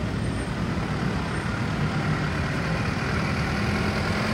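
Mitsubishi Colt Diesel truck's diesel engine running as the loaded truck drives slowly up close, its low rumble growing louder near the end.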